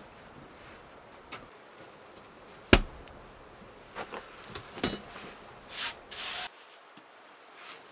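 Sheet of flatbread dough being pressed onto the inner wall of a clay tandoor with a cloth-covered bread cushion. There is one sharp knock a little under three seconds in, then a few softer knocks, then two short rushing, rubbing noises near the end.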